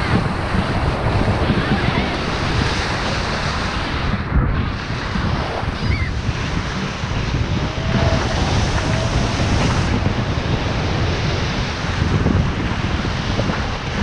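Ocean surf breaking close to shore and washing up the sand in a steady, loud rush, with wind buffeting the microphone.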